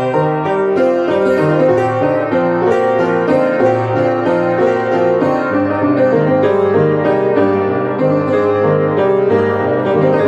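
Beckwith electronic home organ being played: a melody over chords, the notes holding at an even level while they are keyed.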